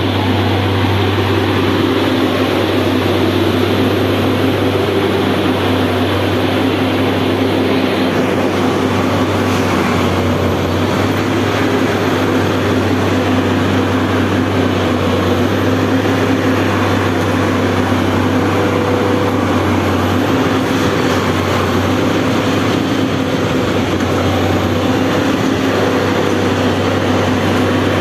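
Plasser & Theurer Unimat split-head track tamping machine running: a loud, steady mechanical noise with a low hum underneath.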